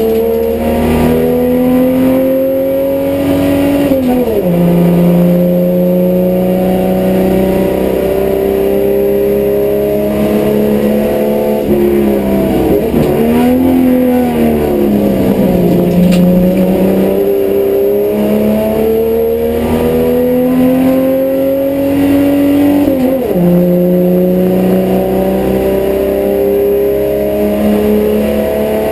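HQ Holden race car's engine at racing speed, heard from inside the cabin: it climbs in pitch under acceleration, drops sharply at upshifts about four seconds in and again near the end, and dips and wavers in the middle as the car slows for a corner before pulling up through the revs again.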